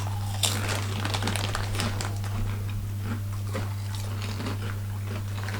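Potato crisps being eaten, with irregular sharp crunches and crackles, over a steady low electrical hum.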